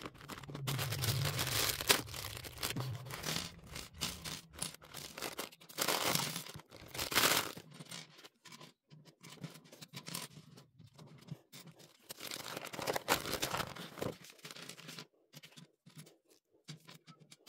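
Packaging tearing and crinkling as LEGO sets are opened, in three loud spells, with small plastic LEGO pieces clicking and rattling against the table between them.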